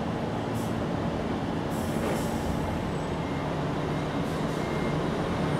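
Steady low rumble of passing vehicle noise, with brief faint high hisses about half a second and two seconds in.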